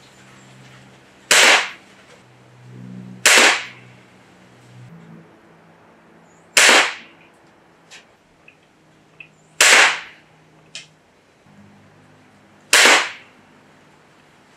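Gamo Wildcat .22 break-barrel air rifle firing a five-shot group: five short, sharp cracks every two to three seconds, with faint clicks between shots.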